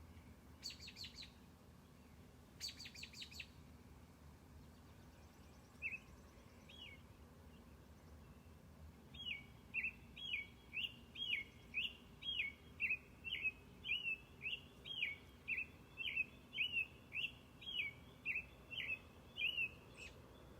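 Wild songbirds calling in the woods: two quick bursts of sharp rapid notes, then a bird repeating a short down-slurred note about one and a half times a second for the rest of the stretch.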